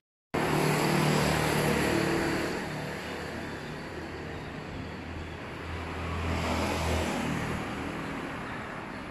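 Street traffic: a motor vehicle's engine running, loudest in the first couple of seconds, then fading and swelling again about six to seven seconds in.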